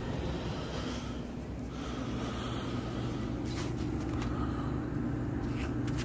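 Indoor air handler blower running steadily at a lowered speed in cooling mode, an even low hum with air noise. The speed was cut to reduce airflow and pull more moisture out of the air.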